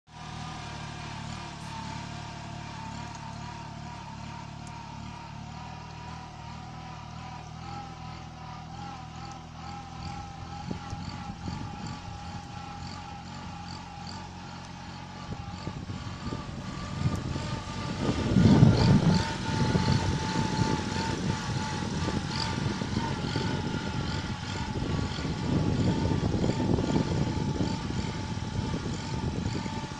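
Kubota compact tractor's diesel engine running steadily while pulling a plank leveller through tilled soil. About halfway through, a louder, uneven rumble builds and swells twice.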